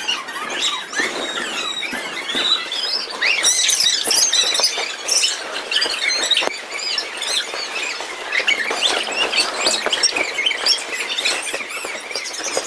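Many children squealing and shrieking at play, high-pitched cries overlapping one another throughout.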